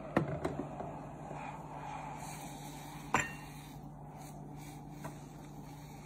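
Sharp plastic clicks as the pot of a SAKI Turkish coffee maker is handled and lifted from its base, then a louder knock with a short ring about three seconds in, over a steady low hum.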